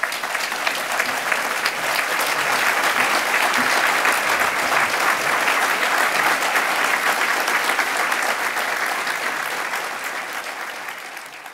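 Audience applauding a speaker at the end of a talk, a dense, steady clapping that fades out near the end.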